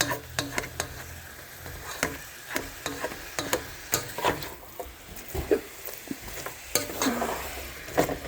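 Ground beef and onion sizzling in butter in a frying pan, with a utensil scraping and clicking against the pan at irregular intervals as the meat is stirred.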